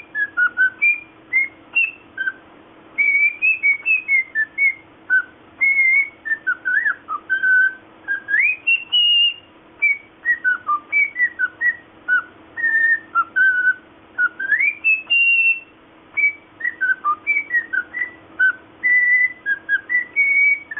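Cockatiel whistling a long run of short, clear notes that hop up and down in pitch, with a couple of longer rising swoops.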